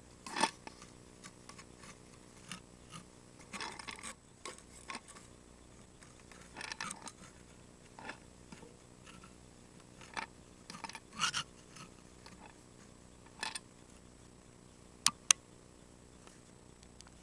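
Handling noise from a kaleidoscope being turned in the hands: scattered soft clicks and rustles, some in short clusters, with two sharp clicks near the end, over a faint steady hum.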